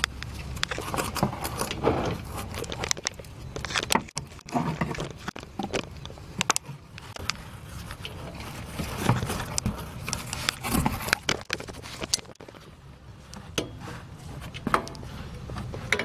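Torque wrench with a socket tightening the rear wheel hub's mounting bolts: irregular ratchet clicks, metal knocks and scrapes of the tool working on the bolts, over a steady low hum.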